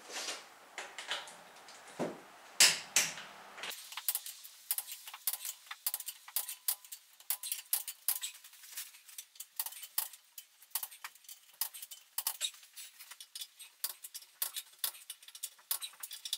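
Hand tools being handled and gathered: light metal clinking and clattering, with a couple of louder knocks about two to three seconds in, then a long run of quick, irregular clicks.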